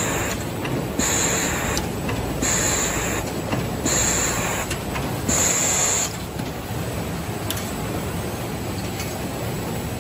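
Napkin packing machine running steadily, with a short hiss repeating about every second and a half that stops about six seconds in.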